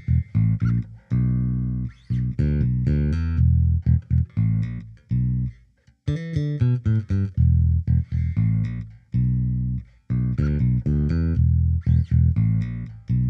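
Sampled jazz bass (Fender Jazz Bass) virtual instrument playing a line of short plucked notes, with a busier, brighter phrase about six seconds in. It plays through an EQ-match curve in FabFilter Pro-Q 2 that reshapes its tone toward a rounder Precision Bass sound.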